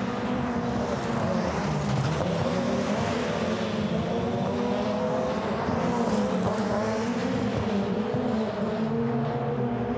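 Several RX2 rallycross cars racing together, their engines revving up and falling back through gear changes with overlapping pitches.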